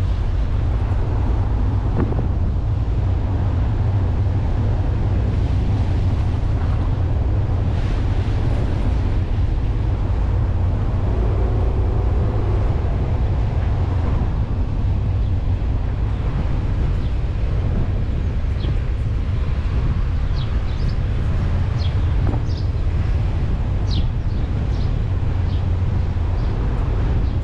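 A car driving slowly along a narrow lane: a steady low rumble of wind buffeting a suction-mounted microphone, mixed with tyre and engine noise.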